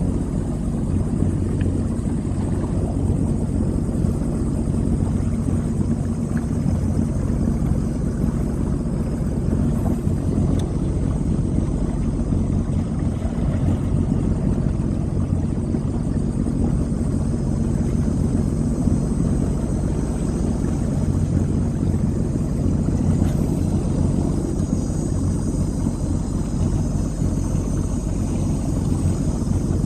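Sea-Doo personal watercraft engine running steadily, a low even hum.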